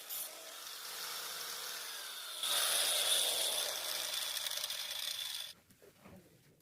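Electric power tool running on wood, with a steady high whine. It gets louder about two and a half seconds in and stops suddenly about a second before the end.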